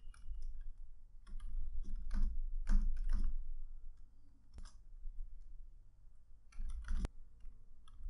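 Computer keyboard typing: keys clicking in irregular runs with short pauses between, and one sharper click about seven seconds in, over a low steady hum.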